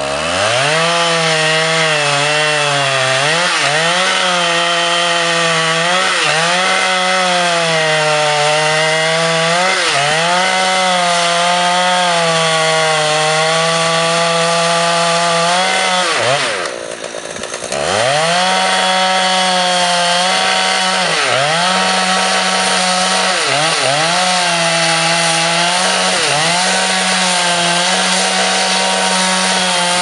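Husqvarna 357XP two-stroke chainsaw revving up and cutting into the trunk of a rotten white fir at high revs, its pitch dipping and recovering every second or two as it works the cut. About halfway through it drops briefly to idle, then revs up again and cuts on.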